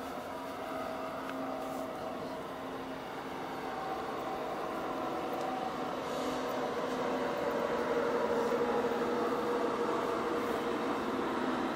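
A DB Class 111 electric locomotive hauling a rake of coaches through the station: a steady wheel-on-rail rumble with a hum at several pitches, growing gradually louder as the train draws nearer.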